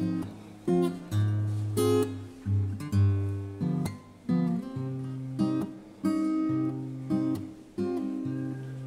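Solo acoustic guitar playing a picked and strummed chord pattern: chords struck every half second to a second and left ringing, over a changing bass note.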